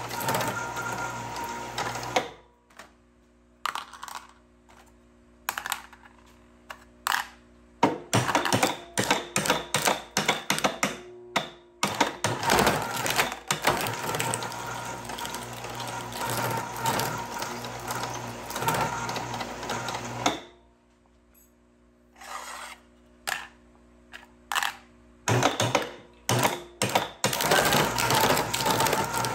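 Precious Plastic shredder's steel blades crunching and tearing aluminum cans, a dense irregular crackle and clatter. The crunching stops about two seconds in, leaving only the steady hum of the drive, picks up again from about eight seconds to twenty, pauses, and resumes for the last few seconds.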